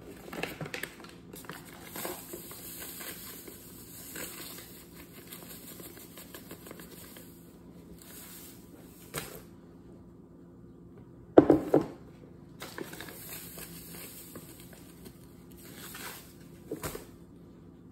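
Paper bag of granulated sugar crinkling and rustling as sugar is poured from it into a glass measuring cup, with a sharp knock a little past the middle.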